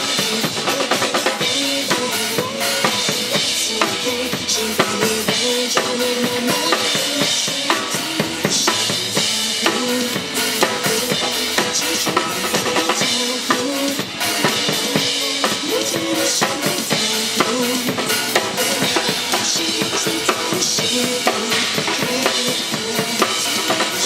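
Instrumental break of a pop song performed live, without vocals: a steady drum-kit beat with kick and snare under a pitched melody line and accompaniment.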